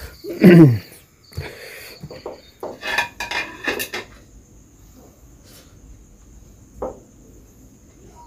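A brief voiced sound, then a run of clattering clicks and clinks of hard objects, like dishes being handled, for about three seconds. A steady high insect trill continues behind, with one more single click near the end.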